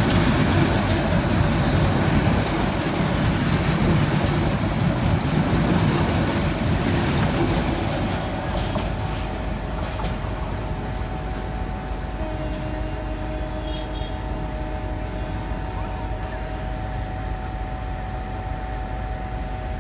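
Passenger coaches of a diesel-hauled intercity express passing through a station without stopping, wheels rumbling on the rails. The rumble fades after about eight seconds as the train moves away, leaving a steady hum with a few held tones.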